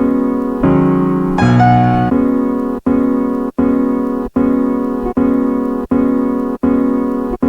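Chopped electric-piano sample from vinyl played from the pads of a Roland SP-404SX sampler: a few different chords over the first two seconds, then one chord chop retriggered about seven times, roughly every three quarters of a second, each hit cut off sharply by the next. It stops abruptly at the end.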